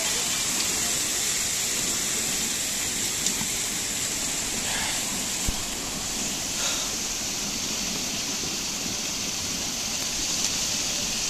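Water pouring and splashing steadily from the row of 108 stone temple water spouts, with a couple of faint clicks.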